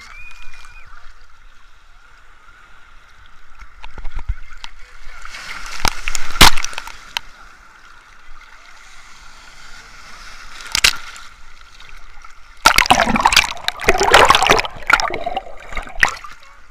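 Sea waves breaking and splashing on the shore, with loud surges of water about five to six seconds in, again near eleven seconds, and a longer one from about thirteen to sixteen seconds.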